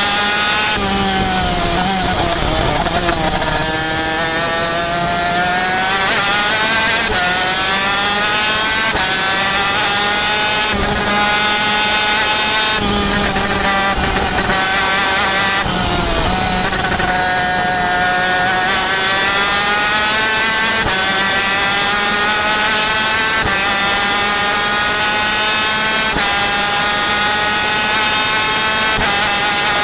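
Onboard sound of a superkart's Yamaha TZ250 two-stroke racing engine at full race pace. Its pitch drops twice, about two seconds in and again about sixteen seconds in, as the kart slows for corners, and climbs again as it accelerates.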